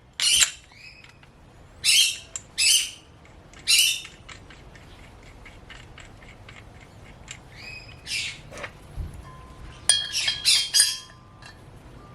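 Birds squawking: several loud, rough calls, some falling in pitch. Between them come light metallic taps and, about ten seconds in, a short metal ring from a hammer on a bearing cone punch tool.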